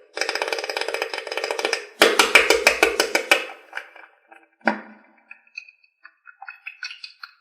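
Cartoon sound effects: a rapid wooden-sounding clatter in two runs, the second louder, then a single knock and a few scattered light ticks and short tones.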